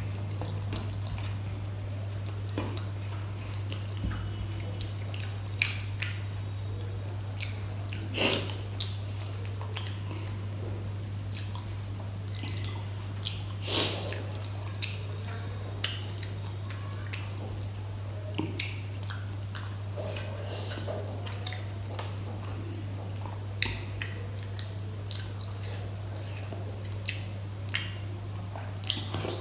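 Close-up wet eating sounds of kadhi pakoda and rice eaten by hand: fingers squishing the soupy kadhi, lip smacks and chewing, heard as scattered sharp clicks and smacks, two louder ones around 8 and 14 seconds in. A steady low hum runs underneath.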